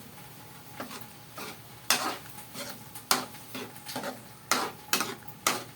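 A cooking utensil stirring thick spaghetti sauce in a pan, knocking and scraping against the pan in irregular clacks about every half second.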